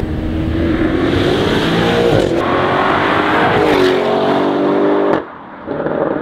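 Audi RS6 Avant's twin-turbo V8, through an Armytrix cat-back exhaust, accelerating hard past: a loud rising engine note that dips and climbs again twice. The sound drops away abruptly about five seconds in and returns briefly near the end.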